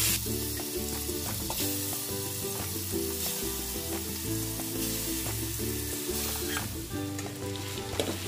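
Marinated chicken sizzling in hot ghee in an aluminium pot on a high flame, a steady sizzle with a metal spatula scraping and stirring through it as the chicken starts to brown. Soft background music plays under it.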